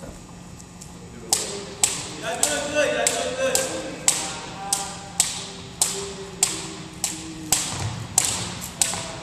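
Double dutch jump ropes slapping a hardwood gym floor as they are turned, a sharp rhythmic tap about twice a second that starts about a second in.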